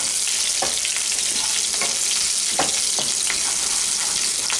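Garlic slices and slit green chillies sizzling in hot refined oil with mustard seeds and cumin, the tempering for a fried rice. A wooden spatula stirs them and scrapes the pan in short strokes every half second or so.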